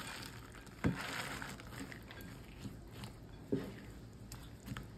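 A silicone spatula stirring chopped nuts into melted chocolate in a glass bowl: faint scraping and stirring, with two short knocks, about a second in and again after three and a half seconds.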